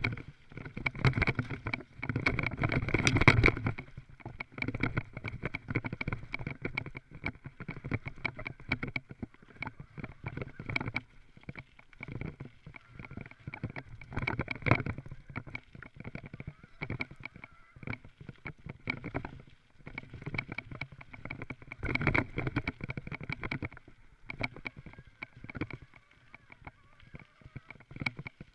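Mountain bike rattling and clattering over a rough dirt trail on a descent: a constant stream of knocks from the bike over bumps, with tyre and rushing-air noise. It is heaviest in the first few seconds and again about 22 seconds in.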